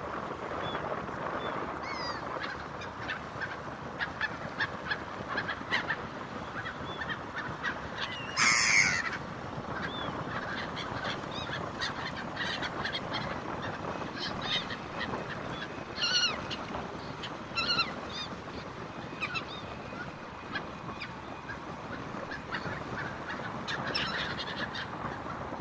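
Gulls calling again and again in short honking cries, the loudest about a third of the way in, over a steady background rush.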